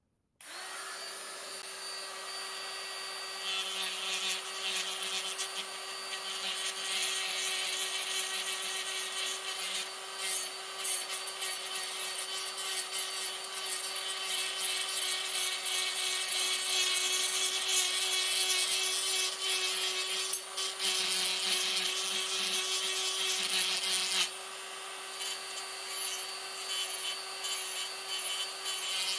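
Small electric power tool starting up and running steadily with a held hum, grinding down a cast replacement moulding piece that still sits proud. The grinding gets harsher a few seconds in and eases briefly about three-quarters through.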